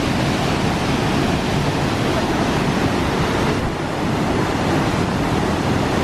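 Salto Palguín waterfall rushing steadily, a constant dense roar of falling water, with a brief dip in the hiss a little past halfway.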